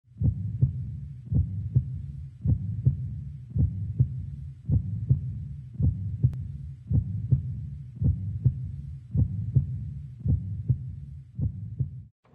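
Slow heartbeat sound effect: about eleven deep double thumps, lub-dub, roughly one a second, stopping just before the end.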